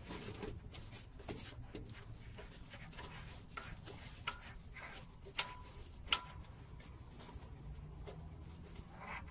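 Faint scattered clicks and metal taps of hand tools working on the AC belt's adjusting bolt, over a low steady hum, with two sharper clicks about five and six seconds in.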